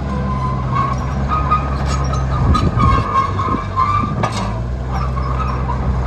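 Crawler bulldozer's diesel engine running steadily under load as it levels soil, with a wavering squeal and metallic clanks from its steel tracks; one sharp clank about four seconds in.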